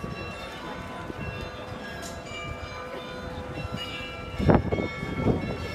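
The bells of the Munich Rathaus-Glockenspiel playing a tune, many tuned bells ringing on together. A brief louder sound close to the microphone comes about four and a half seconds in.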